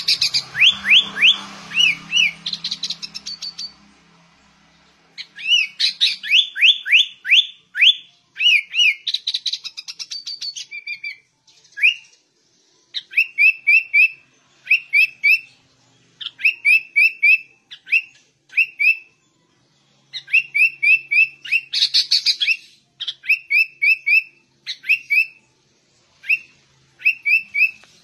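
Sooty-headed bulbul singing loudly in rapid runs of sharp, whistled notes. Through the first half the notes sweep quickly up and down. Later the song settles into short, even phrases of four or five notes, repeated with brief pauses between them.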